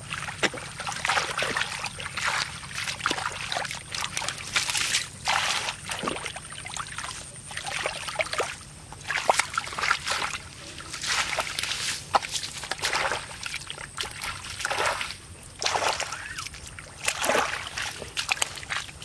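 Hands sloshing and splashing through shallow muddy water and wet grass in irregular bursts, with wet crackles as mud and stems are pulled apart.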